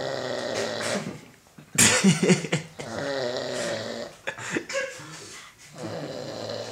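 A sleeping man snoring: a few separate snores, the loudest about two seconds in.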